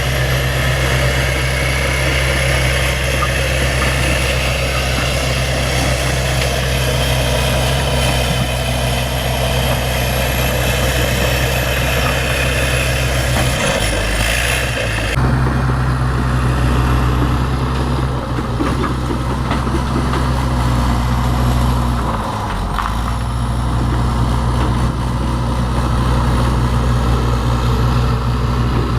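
Bulldozer's diesel engine running steadily, its pitch dipping briefly twice, about halfway through and again near three-quarters of the way.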